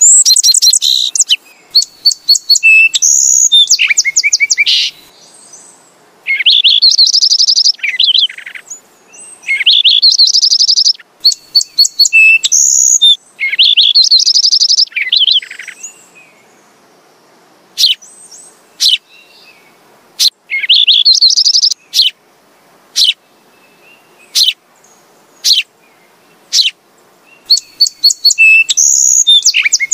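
Recorded sparrow calls: bursts of rapid, high trilled notes about a second long, several times, then a run of single sharp chirps spaced a second or so apart, with the trills returning near the end.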